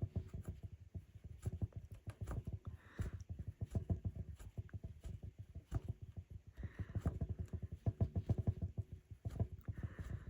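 Rug hook working wool loops through the backing of a hooked rug: a quick, uneven run of soft taps and small pops, with a few brief soft rasps as the wool is pulled through.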